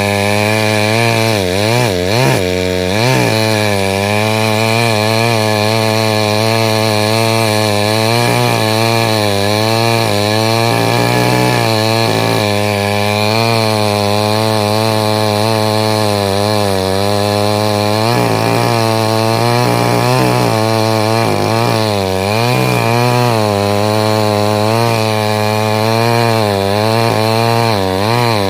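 Chainsaw running continuously while cutting wood, its engine note rising and falling again and again as it bogs and picks up under load.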